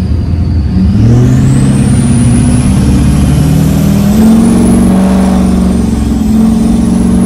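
LLY Duramax diesel pickup with a 64 mm turbo accelerating, heard from inside the cab. A high turbo whistle climbs steeply as the turbo spools, dips briefly about six seconds in and rises again, over the engine's drone, which steps up in pitch about a second in.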